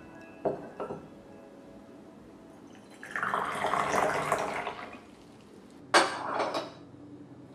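Clay teaware knocked twice, then water poured in a stream into a small clay teapot for about two seconds, then the teapot's clay lid set back on with a sharp clink and a short rattle.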